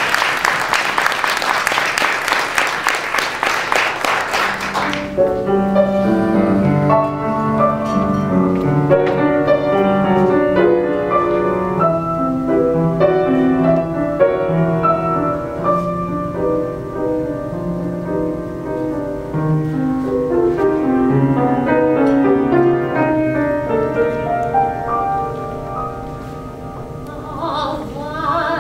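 Audience applauding for about five seconds, then a grand piano playing a slow introduction in chords and single notes. A woman's singing voice comes in just before the end.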